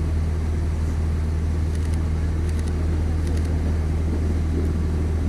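Steady low hum of an idling engine that holds level throughout, with a few faint soft clicks near the middle.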